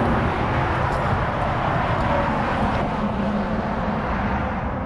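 Steady rumble of vehicle traffic and engines, heaviest in the low range.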